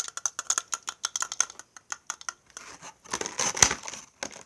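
Handling of a Funko Pop vinyl figure and its packaging: a run of quick small clicks and taps, then a burst of rustling and crinkling about halfway through.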